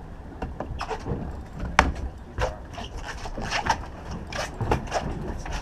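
Footsteps and fishing gear knocking and scraping on a boat's deck, a string of irregular knocks with one sharp knock about two seconds in, over a steady low rumble.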